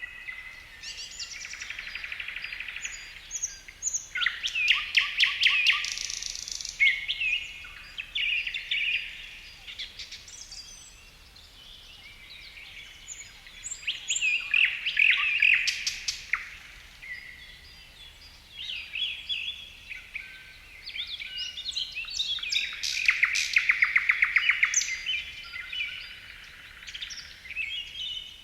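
Songbirds singing in forest ambience: overlapping chirps and whistled phrases, with several loud passages of rapid trills and quieter chirping between them.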